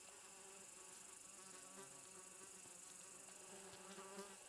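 Faint, wavering buzz of a flying insect close to the microphone, over a steady high chirring of insects in the grass.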